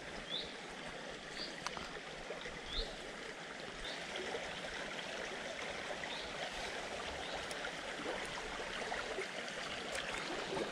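Shallow, fast stream water running steadily over its bed. Short high chirps repeat about once a second through the first half.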